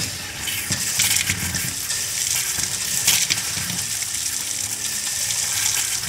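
Hot water running hard from a faucet into a plastic utility sink, spattering irregularly as trapped air is bled out of the hot water line after the water heater refill.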